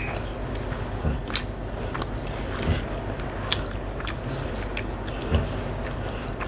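Eating rice and egg omelette curry by hand: fingers squishing and mixing the rice against a plate, with chewing. Scattered light clicks and a few soft knocks are heard through it.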